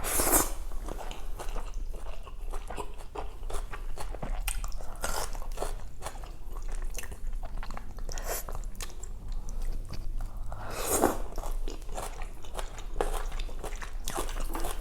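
Close-miked eating of Thai boat noodle soup: many small, wet chewing and biting clicks, with two longer, louder noisy mouth sounds, one at the start and one about eleven seconds in.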